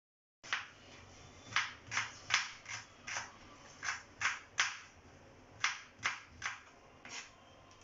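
Kitchen knife chopping vegetables on a cutting board: sharp, uneven knocks, about two a second.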